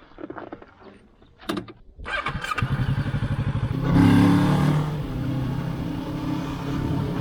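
Kawasaki Ninja 650 parallel-twin engine being started: a few light clicks, then about two seconds in the starter cranks briefly and the engine catches. It revs up once, the loudest point, about four seconds in, then settles into a steady idle.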